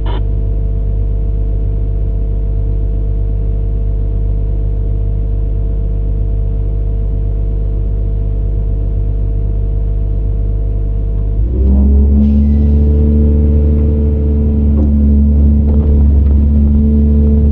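CAT 395 excavator's C18 diesel engine running steadily, heard from inside the operator's cab. About eleven seconds in it comes under heavier load: it grows louder, with a new, stronger, higher drone that holds to the end.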